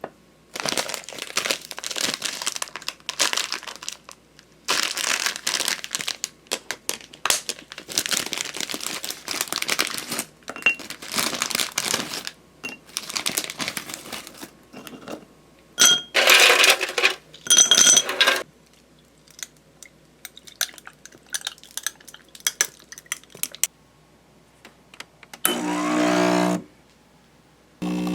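Kitchen food-preparation sounds: irregular rustling, crinkling, scraping and clinking of packaging, utensils and dishes while avocado toast and eggs are made. About two-thirds of the way in there is a louder patch with light ringing clinks, and a brief low hum near the end.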